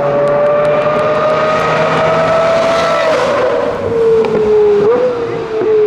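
V12 supercar engine at high revs under acceleration, its pitch climbing slowly, then dropping about three seconds in as the car goes past. The note then holds lower, with a short upward flick in pitch about five seconds in.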